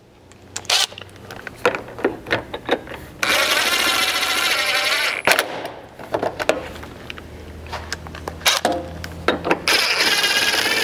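Cordless impact driver running in two bursts, each about two seconds, about three seconds in and again near the end, driving the factory hex-head screws into the rear bumper fascia. Small clicks and rattles of the tool and screws being handled fall between the bursts.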